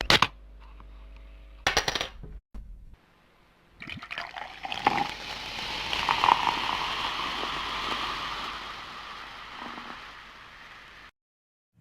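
Sound effects from a talking bottle opener, separated by dead silence: a sharp click at the start and another about two seconds in, then from about four seconds a long hiss of liquid pouring that swells and then cuts off suddenly near the end.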